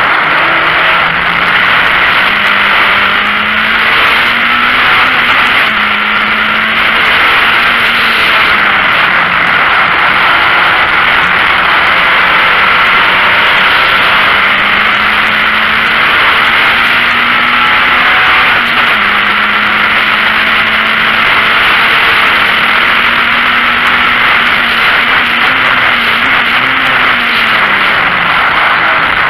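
VW Golf Mk1 race car's four-cylinder engine at racing speed, heard from inside the stripped cabin: a loud, steady rushing roar with the engine note climbing and dropping back several times as the car accelerates, shifts and lifts for corners.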